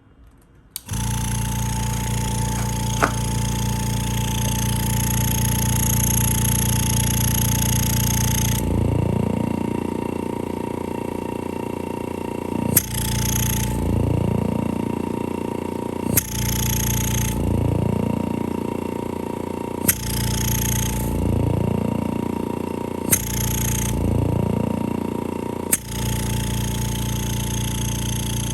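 Rocker 300 oil-free vacuum pump switched on about a second in and running with a steady motor hum. About a third of the way through, its running note starts to change in a repeating cycle roughly every three and a half seconds, each cycle starting with a sharp click.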